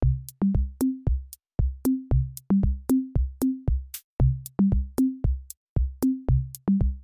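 Background music: an electronic drum-machine beat of kick drum strikes with short bass notes, steady and quick at about three beats a second.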